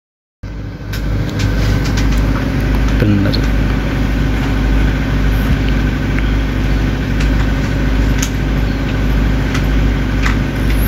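A steady engine-like machine hum with a few light metal clicks of open-end wrenches on a die grinder's collet nut. The sound cuts out for about half a second at the start.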